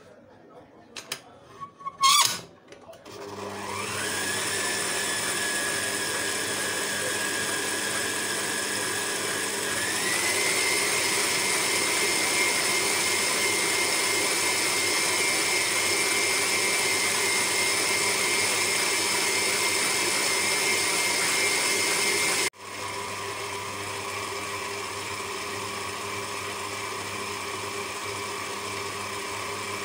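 Electric stand mixer beating cake batter in a steel bowl. After a few clicks its motor starts about three seconds in with a steady whine, steps up to a higher speed about ten seconds in, then cuts for an instant after about twenty-two seconds and runs on at a lower, quieter speed.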